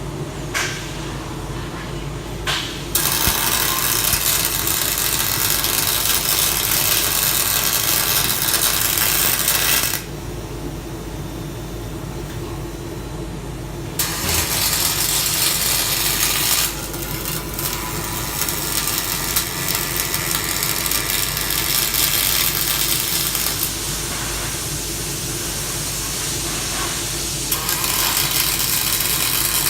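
Robot welding aluminium: the welding arc hisses and crackles in long runs, starting about three seconds in, stopping around ten seconds, and striking again at about fourteen seconds and near the end. A steady low machine hum continues underneath the whole time.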